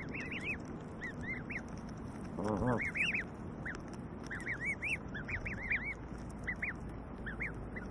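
Canada goose goslings peeping, a steady stream of short, high, arching chirps. One short, lower call from an adult Canada goose comes about two and a half seconds in.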